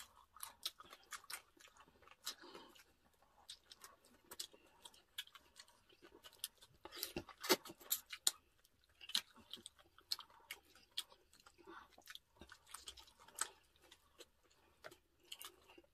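Close-miked chewing: irregular mouth smacks and clicks of people eating roast meat by hand, with a few louder crunching bites.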